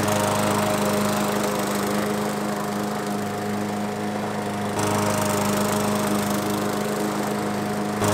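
Craftsman M100 push mower's 140 cc Briggs & Stratton single-cylinder engine running steadily while mowing grass.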